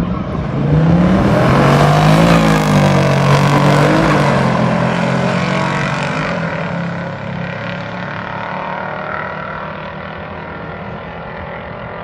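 Muscle car V8 doing a burnout: the engine revs hard with tyre noise about a second in, peaks a couple of seconds later, then the engine sound slowly fades away.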